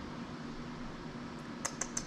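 Steady low background hum, with a quick run of three light, sharp clicks near the end.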